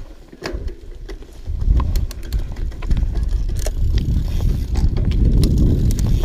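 Mountain bike ridden down a dirt trail. Tyres rumble on the ground, the bike gives off scattered clicks and rattles, and wind buffets the microphone. The sound grows loud about a second and a half in as the bike picks up speed.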